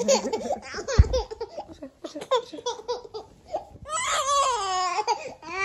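Baby boy crying and fussing in short, choppy cries, then a longer wavering wail about four seconds in. A low thump about a second in.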